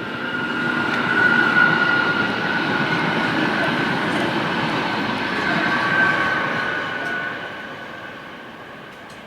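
A vehicle passing by, swelling over about a second, holding, then fading away over the last few seconds, with a steady high whine over a rumble.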